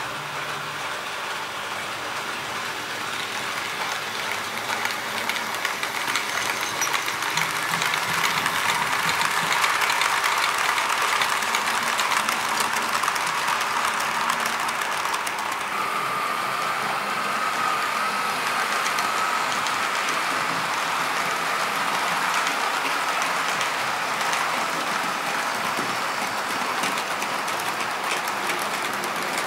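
TT-scale model trains running on the layout: the steady whirr of small electric locomotive motors and wheels on track, with fine rapid clicking from wheels rolling over rail joints. The sound swells for a while as a train passes close, and a thin steady whine joins about halfway.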